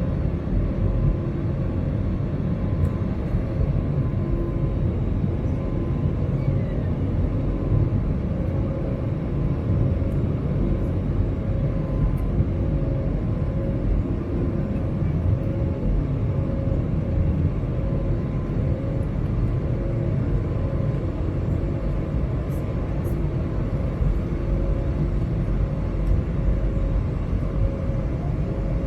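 Cabin noise of an Airbus A320neo with Pratt & Whitney PW1100G geared turbofan engines, heard from a window seat over the wing: a steady low rumble with a faint hum that pulses at a slow, even beat.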